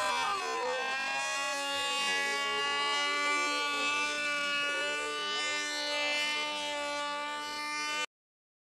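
Racing model aircraft's two-stroke engine running flat out with a steady high-pitched whine, wavering briefly in pitch near the start. The sound cuts off suddenly about eight seconds in.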